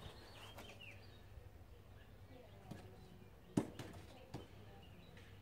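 Faint bird chirps in the first second over a low steady hum, then a few sharp knocks, the loudest about three and a half seconds in.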